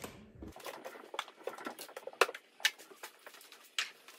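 Scattered light clicks, taps and rustles of small items being handled and set down on a workbench while it is tidied.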